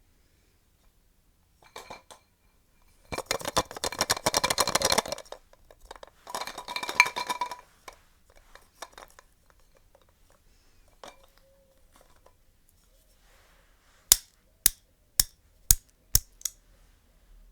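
Glass and china tableware clinking and rattling in two spells of rapid clatter with a ringing tone, then six sharp taps about half a second apart near the end.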